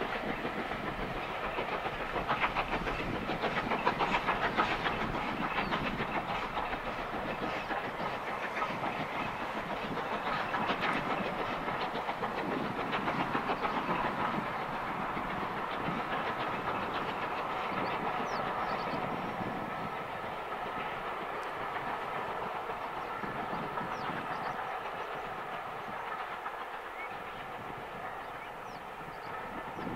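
Steam locomotive hauling a train of carriages, working with a fast, even beat, loudest in the first few seconds and fading as the train draws away.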